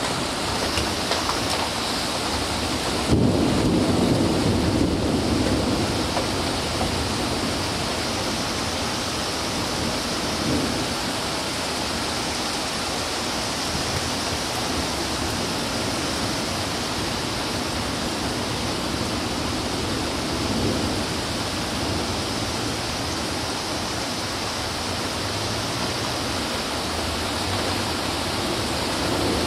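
Thunderstorm: steady heavy rain, with a sudden loud thunderclap about three seconds in that rumbles on for a few seconds. Fainter rolls of thunder follow later.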